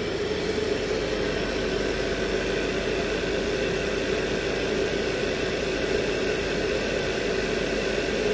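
Commercial gas-fired water heater running while being test-fired, a steady rush of burner and fan with a steady hum through it.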